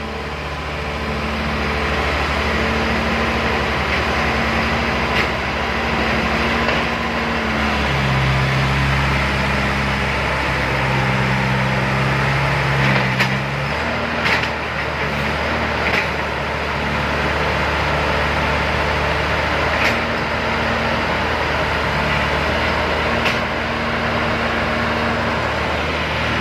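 Heavy diesel machinery engine running steadily, its note changing as the load shifts, with occasional short knocks or clanks.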